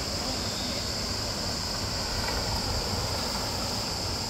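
Steady outdoor ambience: wind rumbling on the microphone under a constant high-pitched hiss.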